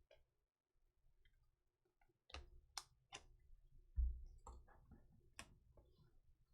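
Faint clicks and taps of trading cards and plastic card holders being handled on a table, a scattered series starting a couple of seconds in, with a soft thump about four seconds in.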